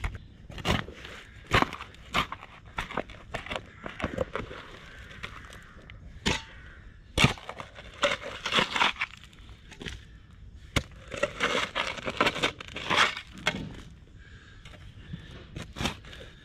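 Steel spade cutting into and lifting heavy soil: repeated crunching scrapes of the blade through earth, with sharp knocks as it is driven in.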